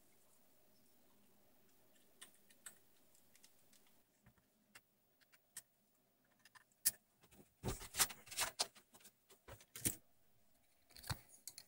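Faint handling noise on a workbench: scattered light clicks at first, then a denser cluster of sharper clicks, knocks and rattles in the second half as cables and parts are moved around.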